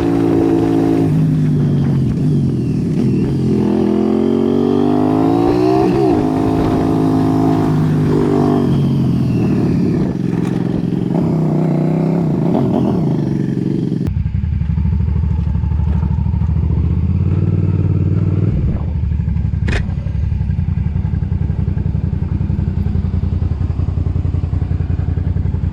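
Motorcycle engine pulling hard, its pitch rising and falling again and again as the rider accelerates and shifts. About halfway through, a different motorcycle engine takes over, running steadily at low revs, with one sharp click a few seconds later.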